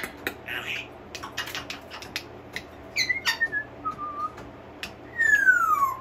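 African grey parrot whistling, with scattered sharp clicks. There is a short falling whistle about halfway through, then a long, clear whistle sliding steadily down in pitch near the end, the loudest sound.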